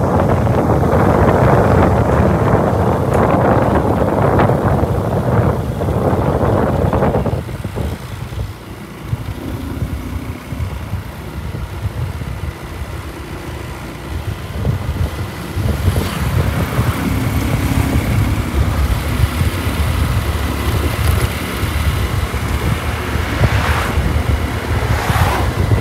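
Wind buffeting the microphone over the low rumble of a motorcycle riding along. The wind noise eases suddenly about seven seconds in, leaving mostly engine and road rumble, then builds again in the second half.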